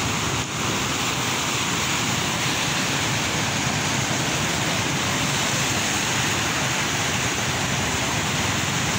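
Fast-flowing floodwater rushing steadily, an even roar of water with a brief dip about half a second in.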